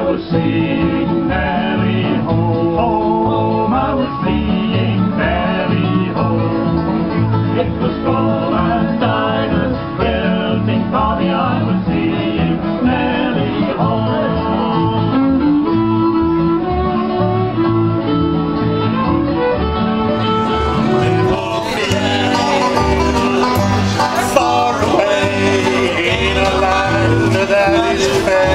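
A bluegrass band playing an instrumental on fiddle, banjo, acoustic guitars and upright bass. The sound turns brighter about two-thirds of the way through.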